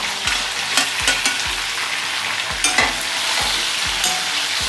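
Chicken pieces sizzling as they fry in a hot wok with onions, chillies and bay leaves, with a metal ladle knocking and scraping against the wok several times in the first three seconds as they are stirred in.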